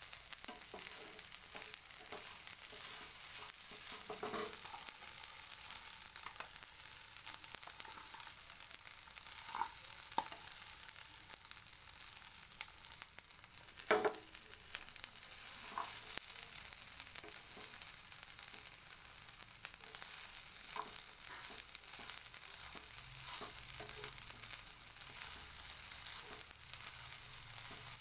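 Yangzhou fried rice frying in a pan with a steady sizzle. Occasional short knocks of the utensil stirring it come through, the loudest about halfway through.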